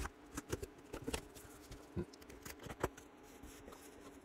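Clear plastic wrap crinkling and a cardboard box being handled as the box is opened: scattered light crackles and taps, the loudest near the end.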